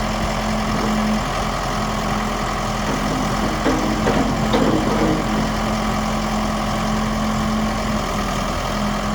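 Case 590 Super L backhoe loader's four-cylinder diesel engine idling steadily, with a brief spell of extra clatter about four seconds in.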